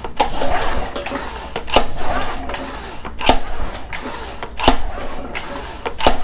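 Tohatsu 20 hp four-stroke outboard turned over by hand on its pull cord, about one pull every second and a half, without firing: cranked dry so the oil pump can pick up the fresh oil before the first start.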